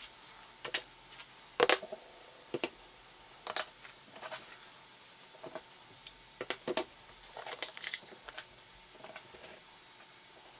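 Irregular clicks and taps, like small hard objects being handled, with the loudest knocks about two seconds and eight seconds in.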